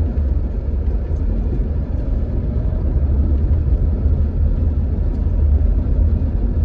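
Steady low rumble of a car driving at town speed, engine and tyre noise heard from inside the cabin.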